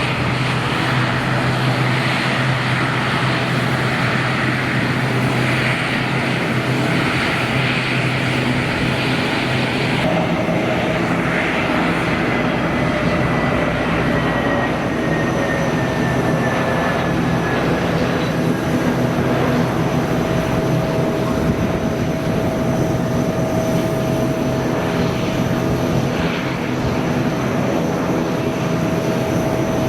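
Airliner engines running close by, a loud steady roar. About ten seconds in the sound changes abruptly, after which a faint falling whine and a steady tone run under the noise.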